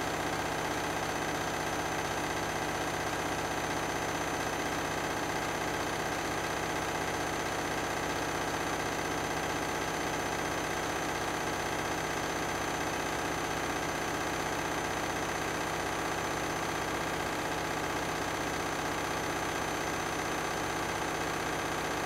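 Candy front-loading washing machine spinning at a steady speed: an even motor whine over a drum hum, holding the same pitch and level throughout.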